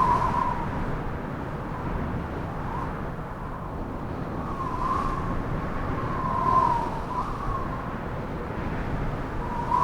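Severe windstorm gusting: a low rumble of wind hitting the microphone, with a high wavering whistle that swells and fades several times.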